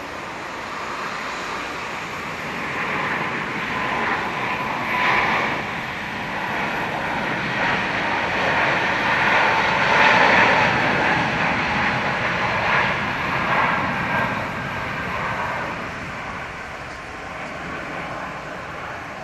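Jet airliner passing, its engine noise with a whining tone swelling to its loudest about halfway through, then fading away.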